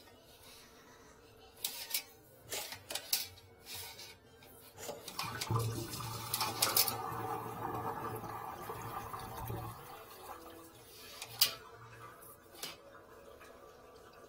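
Toilet flushing, water rushing down the drain line for about five seconds, starting about five seconds in. A few sharp clicks and knocks come before it and one more near the end.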